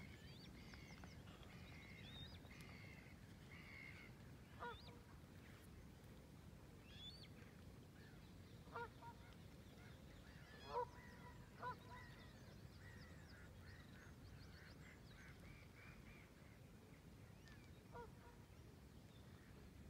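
Waterfowl on a pond calling: about five short calls, spread out, the loudest in the middle. Under them is a faint high twittering of small birds and a low background hum.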